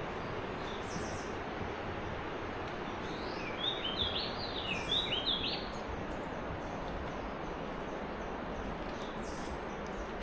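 Steady rushing of a river, with a bird giving a quick run of short chirps about three seconds in, lasting a couple of seconds.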